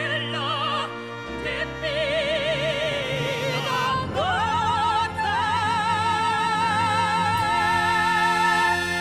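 Operatic singing with orchestra, the closing bars of an Italian-language aria. About four seconds in the voice slides up to a long high note held with vibrato until the music ends.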